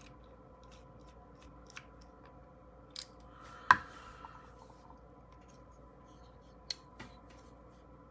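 Varga VBR Small folding knife on Skiff pivot bearings being swung open and shut by hand: a handful of sharp clicks of the blade and detent, the loudest a little over three and a half seconds in.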